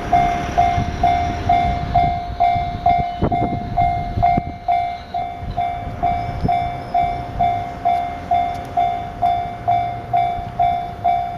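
Japanese level-crossing warning bell ringing, one electronic ding repeated about twice a second, over the low rumble and clatter of a passing train.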